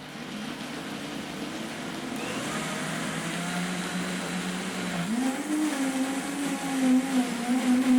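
A Vita-Mix blender running, churning a thick mix of dried cranberries, cashews and water. Its motor whine grows louder and jumps up in pitch about five seconds in, then wavers as the load shifts.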